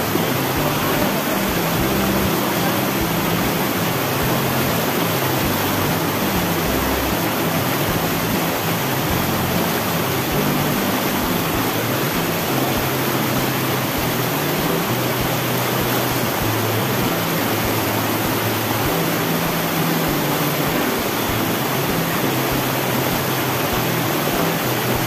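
Mountain river rapids rushing over boulders: a steady, unbroken noise of running water.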